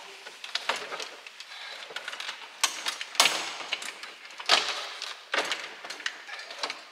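Plastic dashboard of an Opel Kadett GSI being pulled and wrestled loose by hand: irregular scraping, creaking and rattling, with several louder scrapes and knocks.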